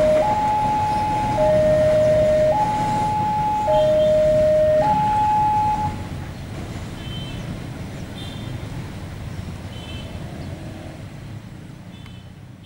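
Railway level-crossing alarm sounding a two-tone hi-lo siren, each tone held about 1.2 seconds, that stops about six seconds in. Underneath it and afterwards, a container freight train rolls past with a steady low rumble that fades toward the end.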